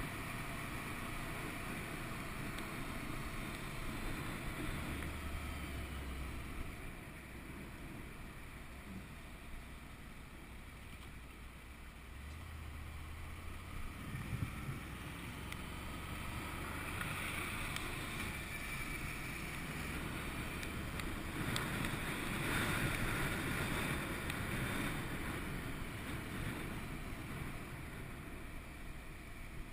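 Wind rushing over a helmet-mounted camera's microphone on a moving motorcycle, over the low running of a 2011 Honda VFR800's V4 engine. The rush grows louder for a few seconds about three-quarters of the way through.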